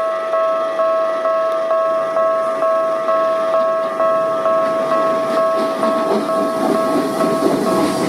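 Japanese level-crossing warning bell ringing its rapid electronic ding-ding, a little over two strikes a second. Over the last few seconds it is joined by the rising rumble of an approaching Keisei 3850-series train.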